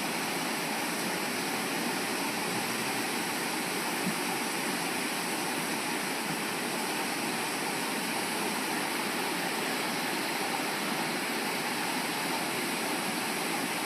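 Steady rushing of fast-moving flash-flood water, an even, unbroken noise that holds the same level throughout.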